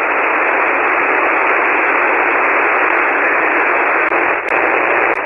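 Shortwave transceiver receiving an empty 40-metre SSB channel: a steady, loud hiss of band noise, thin and narrow like a telephone line, with no station coming back. A couple of faint clicks near the end.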